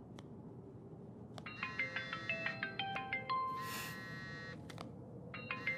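Mobile phone ringtone: a short melody of quick, bright tones starts about a second and a half in and plays through, then begins again near the end. A few soft clicks come in between.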